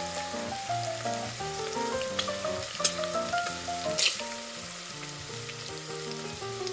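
Sizzling frying sound effect laid over a plastic toy frying pan being stirred, with a few sharp clicks of plastic spatula and toy food pieces against the pan, and a simple background melody of stepping notes underneath.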